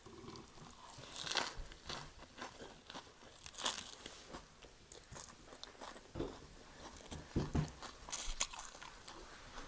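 Close-up crunching and chewing of a crispy bánh xèo (Vietnamese rice-flour pancake) wrapped in lettuce and fresh herbs: irregular crisp crackles from biting and chewing.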